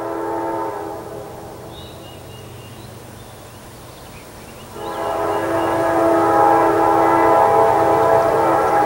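Norfolk Southern freight locomotive's air horn sounding as the train approaches, the pattern used for a road grade crossing: one blast ends about a second in, and a second, louder long blast starts near the halfway point and is still held at the end. A low rumble of the approaching train runs underneath.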